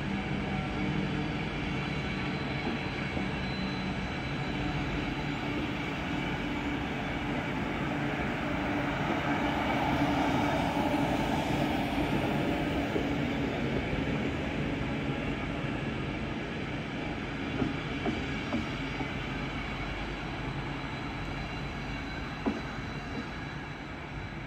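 ÖBB passenger coaches rolling past, their steel wheels running on the rails in a steady rumble that swells about ten seconds in, with a few sharp clicks in the last third as the end of the train passes.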